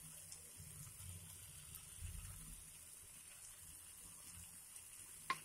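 Near silence: faint low rumble and hiss of room tone, with one soft click near the end.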